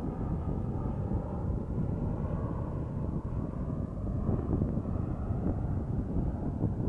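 Boeing 737 airliner on landing approach: a steady low jet-engine rumble with a faint whine, mixed with wind buffeting the microphone.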